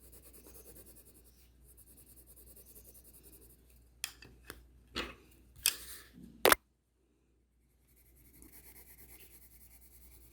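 Drawing tool scratching and rubbing on paper in quick strokes, with a few sharp taps and knocks, the loudest about six and a half seconds in. The sound cuts out completely for about a second and a half, then the faint scratching resumes.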